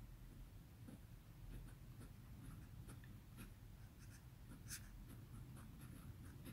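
Faint scratching of a TWSBI fountain pen's fine nib on 80 g Miilk Premium paper, in many short separate strokes as a word is written by hand.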